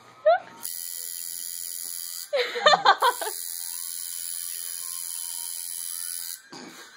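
Electric tattoo machine buzzing steadily, starting about half a second in and stopping shortly before the end. Around the middle it pauses briefly under a loud, wordless vocal outburst from a person.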